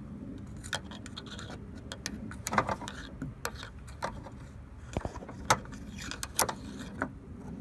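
Coat-hanger wire hook clicking and scraping against metal inside a Ford Mustang door as it fishes for the latch rod: irregular light clicks over a steady low hum.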